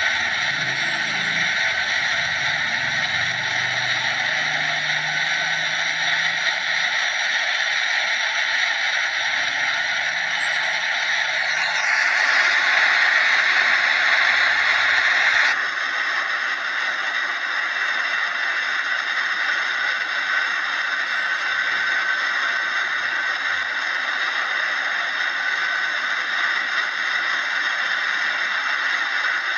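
Airbus A320-214's CFM56-5B jet engines on landing approach, a steady roar. It changes abruptly about twelve seconds in and again a few seconds later, where separate takes are spliced together.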